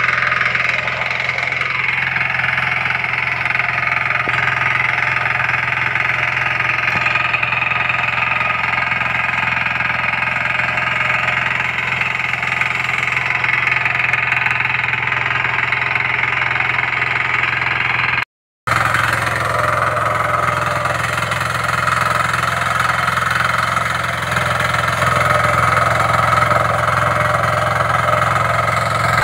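Diesel power weeder's small engine running steadily as its tines work the weedy soil between shrub rows. The sound drops out completely for a moment about two-thirds of the way through, then carries on unchanged.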